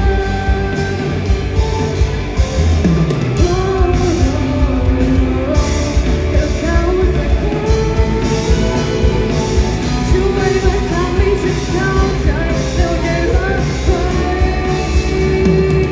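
Live rock band playing with a lead singer, a steady drum beat with cymbals under the vocal melody.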